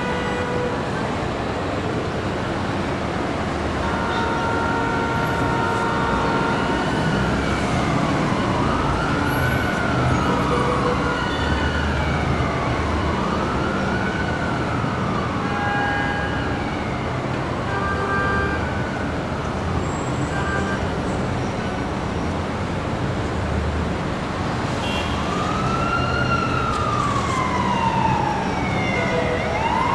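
Busy city street traffic noise, steady throughout, with a car horn sounding a few seconds in. An emergency vehicle siren wails up and down about every two seconds, dies away mid-way, and comes back louder near the end.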